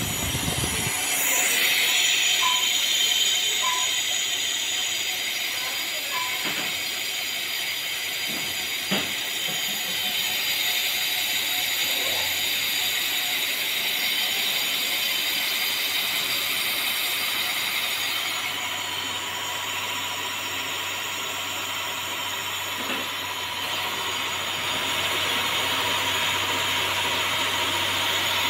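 Metal lathe running while its cutting tool turns the outside of an engine cylinder liner: a steady hissing whine.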